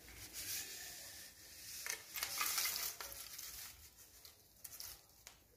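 Fried curry leaves rustling and sizzling in a little oil in a metal kadai as the pan is tilted and the leaves are tipped out onto a plate. The sound is loudest about two seconds in and fades near the end. It is the light crackle of leaves fried crisp.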